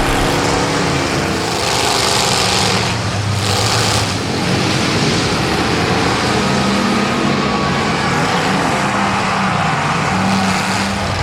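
Demolition derby cars' engines running and revving together, with a stretch of louder hiss about two to four seconds in.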